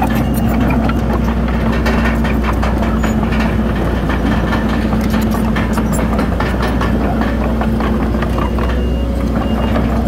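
Heavy diesel earth-moving machinery running steadily: a deep engine drone with frequent clatter and knocks. A reversing alarm beeps a couple of times near the end.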